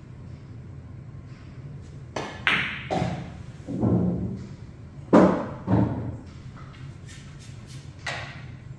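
Pool cue tip striking the cue ball, then billiard balls clacking together and knocking into a pocket: a run of sharp clicks and knocks about two to six seconds in, with one more near the end.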